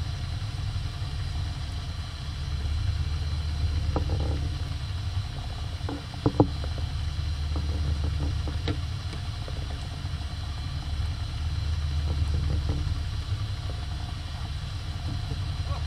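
Fishing boat's engine running steadily with a low drone, under a few short knocks from handling on board, the loudest a sharp double knock about six seconds in.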